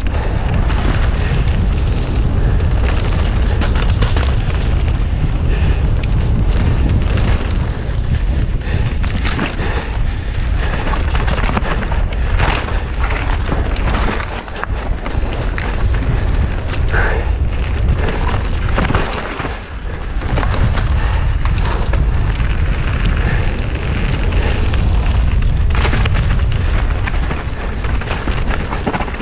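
Wind rushing over a mountain biker's on-board camera microphone at speed, a loud low rumble, with many short knocks and rattles from the bike over rough ground.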